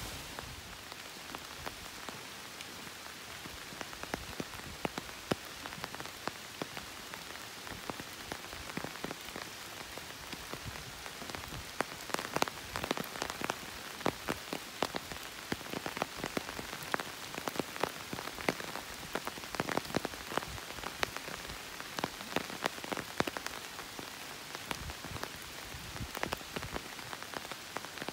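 Rain falling: a steady hiss with many separate drops striking close by. The drops come thicker and louder from about halfway through.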